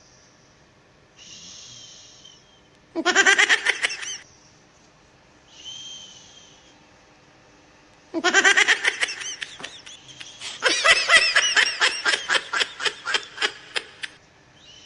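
A person's loud vocal bursts: one about three seconds in and a long one from about eight seconds that breaks into rapid pulses, about four a second, with soft hissing breaths in between.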